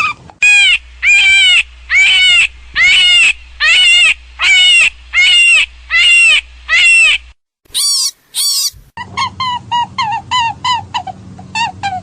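A hare's high-pitched distress squeals, the kind played as a predator call. About eleven loud, drawn-out cries come evenly spaced, each falling in pitch. Two short, shriller cries follow, and after that a quicker run of shorter, quieter squeals at about four a second.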